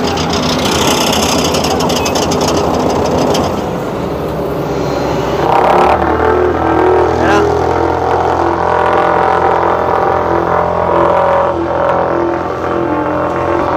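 Cat double-drum asphalt roller running as it compacts fresh asphalt: a rough rattling noise for the first few seconds, then from about six seconds in a steady diesel engine drone with an even pulsing beat.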